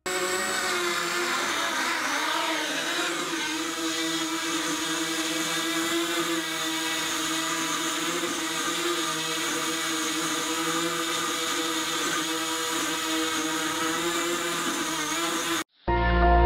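A small electric motor running at a steady speed with an even whirring whine, cutting off suddenly near the end.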